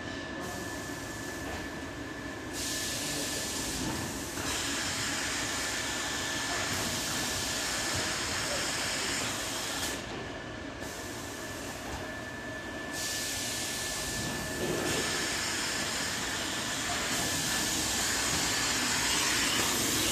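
Automatic high-frequency plastic welding line running: a continuous mechanical noise with a thin, steady high whine that comes and goes. High hiss starts and stops every few seconds, and the sound grows a little louder near the end.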